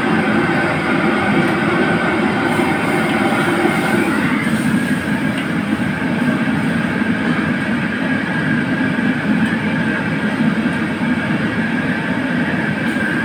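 Steady roar of a commercial wok range's gas burner running at full flame under a wok.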